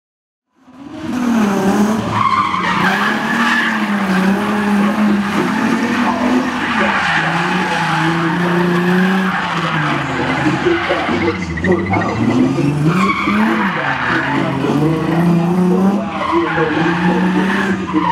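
Drift car in a gymkhana run, its engine revving up and down over and over as it slides around the cones, with tyres skidding and squealing on the tarmac. The sound fades in about half a second in.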